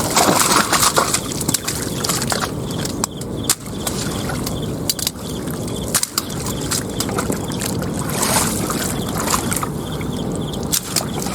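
Water sloshing and splashing as a heavy load of live carp is tipped back into the river, the fish thrashing in the water. The loudest splashes come at the start and again about eight seconds in.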